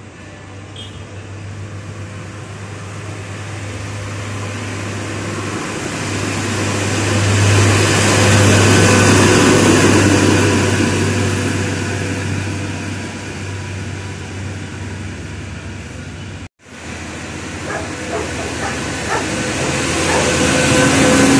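Two heavy diesel dump trucks passing on a road one after the other, engine hum and tyre noise together. The first swells to its loudest about a third of the way in and fades. After a sudden cut, a second grows louder near the end.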